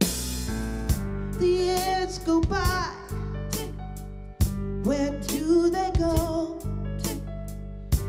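A woman singing a slow melody with vibrato into a hand-held microphone, over an instrumental backing with bass and drums.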